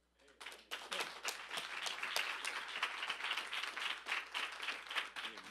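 Congregation clapping after the sermon's closing prayer. It starts about half a second in and thins out near the end.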